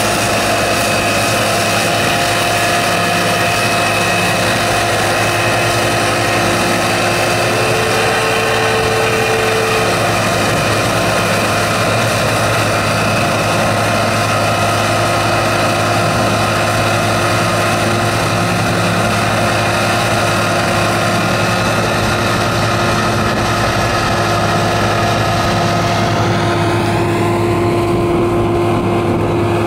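Nuhn Lagoon Crawler agitation boat's 275 hp Cummins engine running steadily under load, driving its pump to stir a manure lagoon, with the churning of the slurry mixed in. The sound grows duller near the end.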